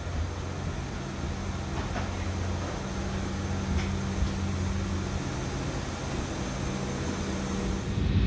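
A steady, low mechanical hum with a thin, high, steady whine above it, typical of airport machinery or aircraft systems; a couple of faint ticks sound in between.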